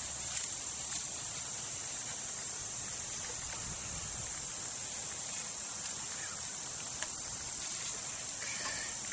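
Steady, high-pitched chorus of insects chirring in the surrounding grass, with a couple of faint clicks.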